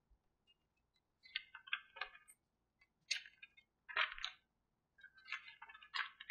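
Magazine pages being turned by hand: several short papery rustles a second or so apart.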